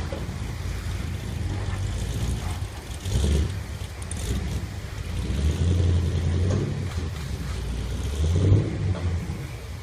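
LS3 6.2-litre V8 with a Jannetty JRE470 blower cam and ported heads running at a rough, loping idle. Its level swells unevenly a few times, around three, six and eight and a half seconds in.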